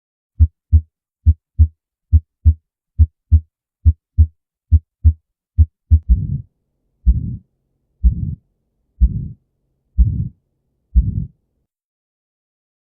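Human heartbeat with the two sounds of each beat clearly separated ('lub-dub'), about 70 beats a minute. About six seconds in, the beats change to single longer sounds about a second apart, each a thump followed by a short rushing noise, which stop near the end.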